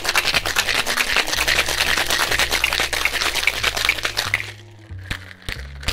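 Ice rattling hard and fast inside a Boston shaker, a metal tin sealed over a mixing glass, during a vigorous cocktail shake. The rattle stops about four and a half seconds in, and a few sharp knocks follow near the end.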